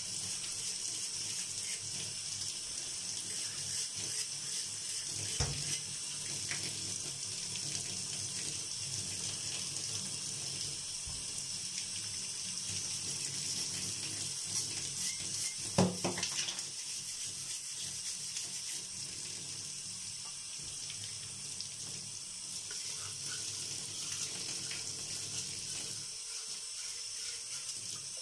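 Tap water running in a steady stream into a bathtub while a brass jug is scrubbed under it with a bristle brush. A sharp knock comes about 16 seconds in, the loudest moment, and a smaller one about five seconds in.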